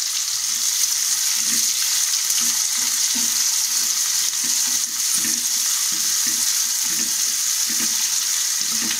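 Sliced onions and garlic sizzling in hot oil in an aluminium kadai, a steady frying hiss. A wooden spatula stirs and scrapes through them about twice a second as they are sautéed.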